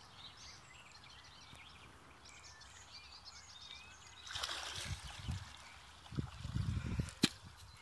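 Water splashing as a hooked carp is scooped into a landing net and lifted out, starting about four seconds in, followed by low thuds and sloshing and one sharp click near the end. Faint bird chirps come before the splash.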